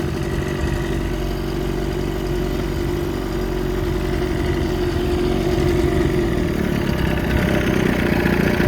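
2022 Mercury 15 hp four-stroke EFI outboard, a two-cylinder engine, idling steadily.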